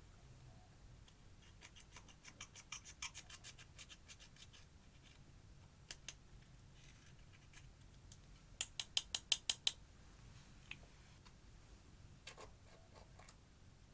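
Faint runs of quick, sharp clicks and crackles from makeup and slime being worked by hand, in three bursts; the loudest is a tight string of about eight clicks in a second, about nine seconds in.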